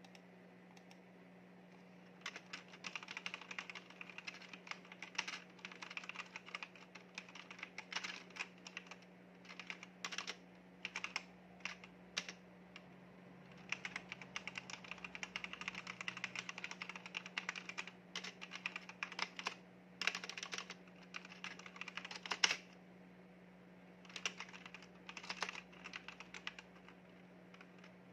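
Typing on a backlit mechanical keyboard: quick runs of key clicks starting about two seconds in, with short pauses, a longer break near the end, then more typing. A faint steady low hum lies underneath.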